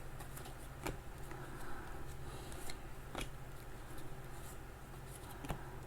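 Trading cards being handled and flipped through by hand: a few faint, short clicks and slides of card stock over a low steady hum.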